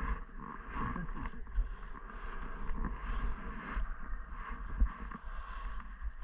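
Skis sliding and scraping over snow through a run of turns, the hiss swelling and fading about once a second, with wind rumbling on the camera's microphone.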